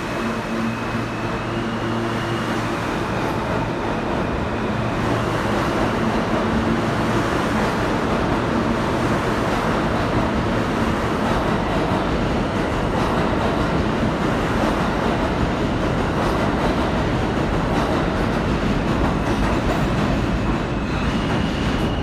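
Alstom R160 New York subway train running through an underground station: steady, loud noise of the train on the rails. A faint high tone sits over it for the first few seconds and comes back near the end.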